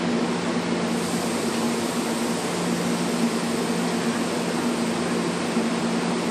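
Stopped NJ Transit commuter train humming steadily: an even low drone over a fan-like hiss, with no change in pitch or level.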